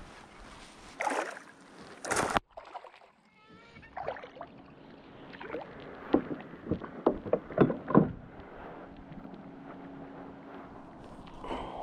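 Water splashing as a hooked largemouth bass is brought to the kayak. Then a quick run of sharp knocks and rattles as the fish is lifted and handled on board.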